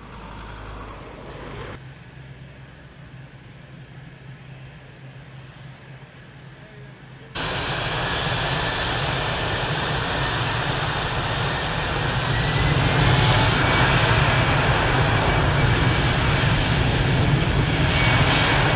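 Boeing C-17A Globemaster III's four Pratt & Whitney F117 turbofans running, at first a quieter steady hum. About seven seconds in they become suddenly much louder, and they swell again a few seconds later into a loud jet rumble with a high, slightly rising whine as they spool up to take-off power.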